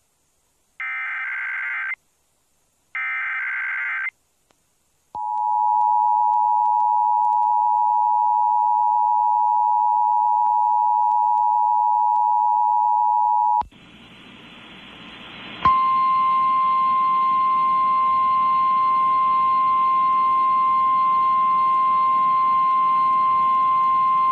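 Emergency Alert System broadcast over FM radio, signalling a hurricane warning: three short bursts of SAME digital header data, then the two-tone EAS attention signal held steady for about eight seconds. The two-tone signal stops abruptly and gives way to a hissing relayed feed. About two seconds later a single steady alert tone, slightly higher in pitch, starts over the hiss and holds.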